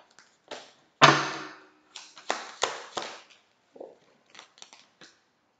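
Tarot cards shuffled by hand: a string of sharp slaps and flicks as cards strike each other, the loudest about a second in, with lighter clicks near the end.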